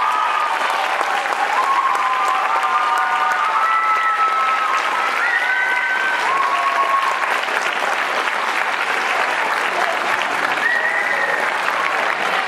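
Audience applauding steadily after an orchestral piece, with a few cheers rising over the clapping.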